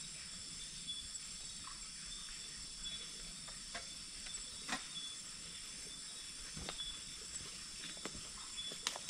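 Night insects chirping steadily in several high pitches, with scattered sharp snaps and crackles, about half a dozen of them, the loudest about five seconds in and just before the end.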